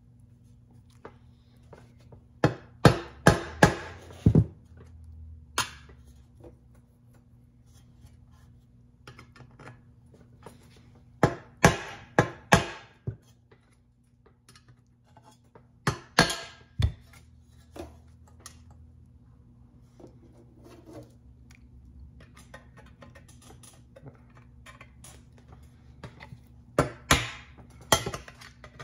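Small hammer tapping a thin driver rod to push retaining clips onto the studs of a metal parking-light housing. The taps come in short bunches of sharp metal strikes, with the longest run, about six quick taps, a few seconds in, and pauses between bunches.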